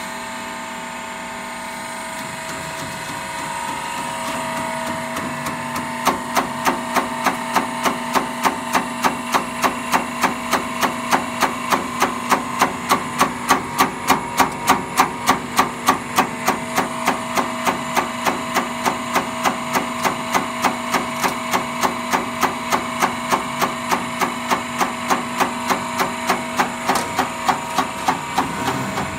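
Diesel injector test bench running: its motor-driven high-pressure pump hums steadily with a few fixed whining tones. From about six seconds in, an injector mounted on the bench ticks fast and evenly, several times a second, as it is pulsed during the test.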